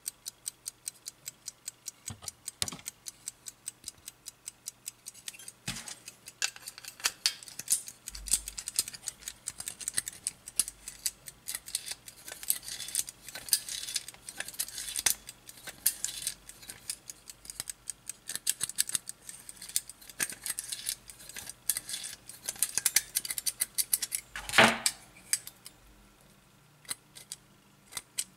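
Platform escapement of a Soviet marine wall clock movement ticking steadily, about five ticks a second, then mixed with denser, irregular metallic clicking as the movement is handled. One loud knock comes near the end.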